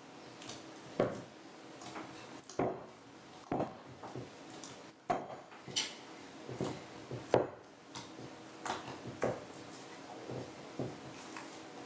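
Wet hands poking and squelching sticky sourdough dough in a glazed mixing bowl, working the levain into the autolysed dough. Irregular short squishes and light taps, roughly one a second.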